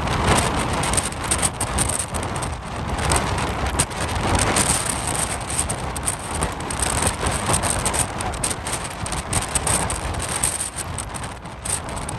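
Antonov An-225 Mriya's six turbofan engines at take-off power as the aircraft lifts off and climbs: a loud, rough jet noise with a crackling edge that rises and falls in loudness.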